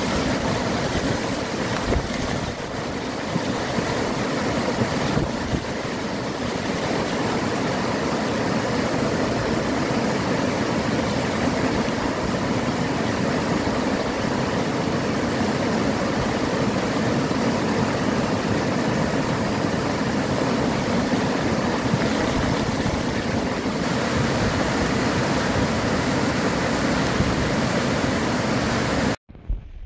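Floodwater rushing over a low causeway, a loud steady rush of churning water. It cuts off suddenly near the end.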